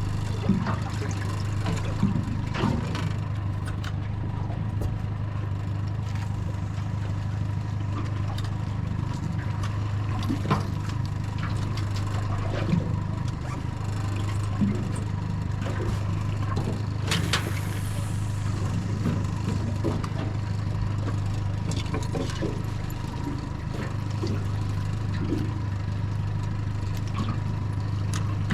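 Yamaha 75 outboard motor idling steadily, with scattered light knocks and clicks and one brief sharp hiss about two-thirds of the way through.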